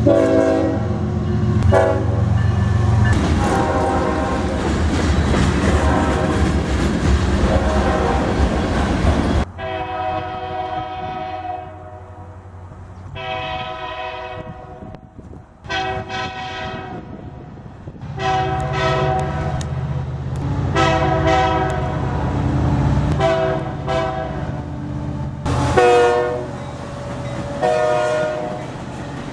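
Locomotive air horns sounding multi-note chords in long and short blasts, several different horns in turn with abrupt cuts between them. For the first nine seconds or so, and again in the later part, a train rumbles past close by under the horn.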